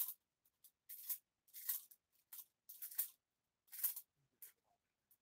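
Parchment paper crinkling and scraping in short, sharp strokes, about one a second, as a metal dab tool works rosin off it.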